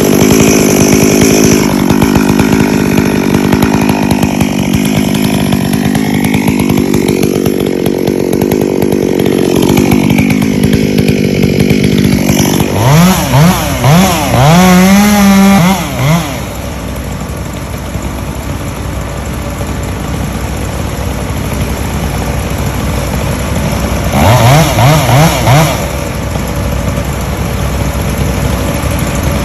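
Chainsaw engine running steadily for about twelve seconds. It is then revved in several quick throttle blips, rising in pitch each time, and drops to a lower idle. Another short run of blips comes near the end.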